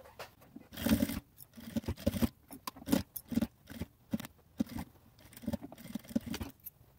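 Sewing machine stitching slowly through thick layers of bag fabric and lining, worked stitch by stitch for a reinforced seam: a run of irregular clicks and taps, a few a second.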